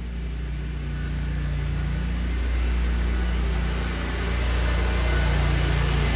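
A motor vehicle engine running with a steady low hum, growing louder over the first few seconds.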